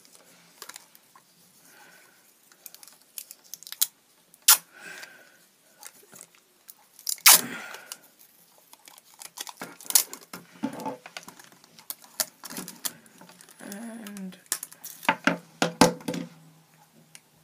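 Clear sticky tape being pulled off its roll and wrapped around a pencil, with crackling rips and short sharp clicks at uneven intervals, the loudest rip a little before the middle.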